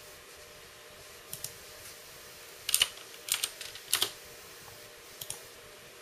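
Sharp clicks and taps of a computer keyboard and mouse: a pair, three quick clusters, then a last pair. They sound over the steady whir of the MSI GTX 660 Ti Power Edition's twin 80 mm Twin Frozr IV fans, running at about 60% speed as they are stepped up by hand in 10% steps.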